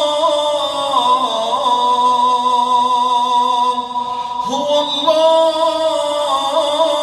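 A man's voice chanting Quran recitation in a melodic style, holding long ornamented notes without distinct words; about four and a half seconds in, one note ends and a new one rises in and is held.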